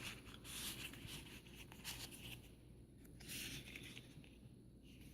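Faint rustling of cardstock and paper being handled and slid, in a few short spells.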